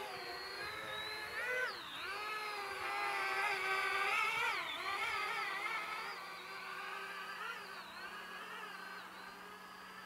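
Parrot Bebop 2 Power quadcopter's propellers whining in flight. The pitch swings up and down as the throttle changes, and the sound grows quieter toward the end as the drone moves away.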